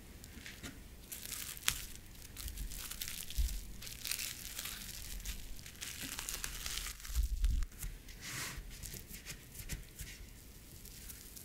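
Plastic cling film crinkling and rustling as it is folded and pressed around a lump of cookie dough. There are irregular sharp crackles throughout, and a couple of soft low thumps on the countertop about halfway through.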